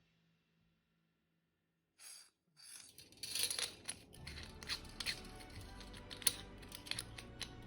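Rapid sharp clicks and rattles of small metal gun parts being handled, the sound of AR-15 lower receiver parts being fitted during assembly. They start after about two seconds of near silence and grow dense from about three seconds in.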